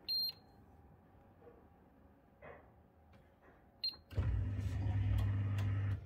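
Miele G7310SC dishwasher control panel giving two short high beeps about four seconds apart as buttons are pressed. About four seconds in, a loud low motor hum starts as the programme begins, and it stops near the end.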